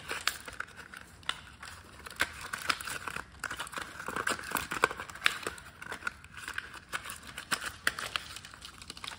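Cardboard and plastic toy packaging crinkling and rustling in the hands, with scattered small clicks and snaps, as a toy car is worked free of its cardboard backing.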